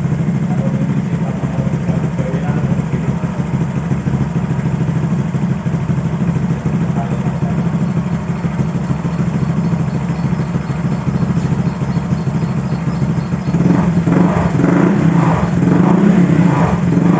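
Honda Vario 150 scooter's single-cylinder engine idling through a stainless ABF Racing 'standar racing' aftermarket exhaust, a steady low exhaust note. A few seconds before the end it gets louder and uneven.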